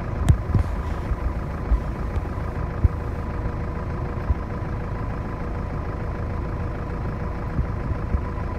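A stationary vehicle's engine idling steadily, with a faint steady whine over it and a few short low thumps in the first few seconds.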